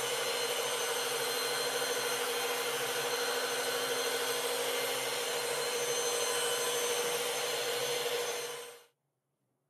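Machine polisher with a foam pad running steadily on a car's clearcoat, a constant motor hum under the pad's rubbing. It stops abruptly near the end.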